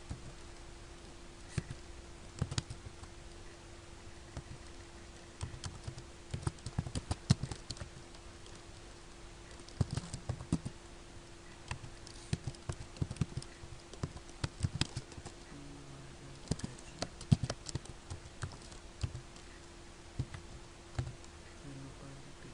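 Typing on a computer keyboard: irregular runs of key clicks with short pauses between them, over a steady low hum.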